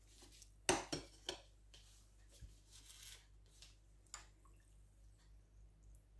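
A tablespoon clicking three times in quick succession against a bowl about a second in, then fainter scattered taps, as sweet juice is spooned over a sponge cake layer to soak it.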